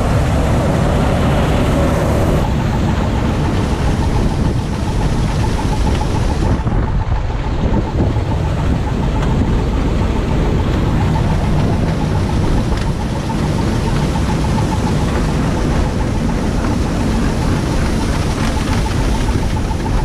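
Massey Ferguson 86 combine harvester running at work, its engine and threshing machinery making a loud, steady mechanical din heard from the driver's seat, with a faint steady whine joining in about two seconds in.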